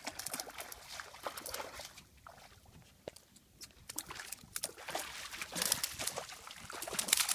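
A hooked fish thrashing and splashing at the water's surface as it is reeled in: irregular splashes and sloshing that grow busier and louder over the last few seconds.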